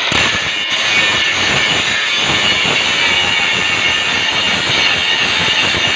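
Angle grinder grinding welded metal: a loud, steady, hissing grind that kicks in just before and holds without a break.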